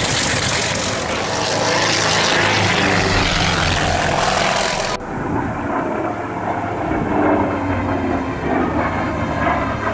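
Vintage piston-engined propeller aircraft flying past with a steady engine drone. About halfway through, the sound cuts abruptly to another pass that is duller and lower.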